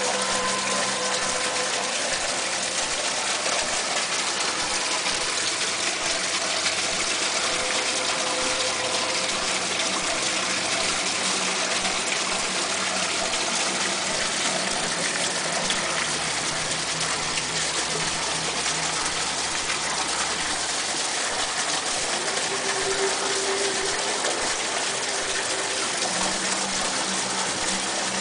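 Steady, continuous rush of running water, like a small fountain or stream pouring, with a few faint steady tones beneath it.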